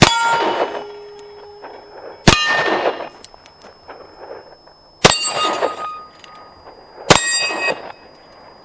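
Four 9mm pistol shots from a Glock 45, about two seconds apart, each followed by the ringing clang of an AR500 steel plate being hit.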